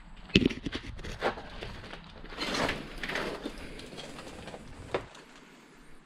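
Footsteps on loose scrap wood and rubble, with a few sharp knocks and a longer stretch of rustling and scraping about halfway through as the debris shifts underfoot.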